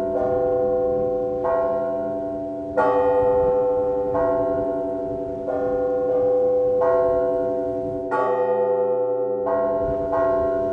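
Russian church bells rung by hand in a matins peal. Several bells are struck in a steady pattern about once a second, each left ringing under the next, and the heaviest stroke comes about three seconds in.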